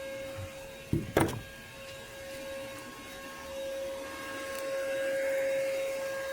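Shop vac running with a steady whine as it sucks water out of an underground irrigation line. Two sharp knocks come about a second in.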